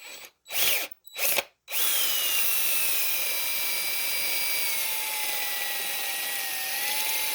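Power drill blipped twice briefly, then run continuously for about six seconds, its whine slowly dropping in pitch as it bores out the hole in a wooden screwdriver handle to seat the shaft deeper.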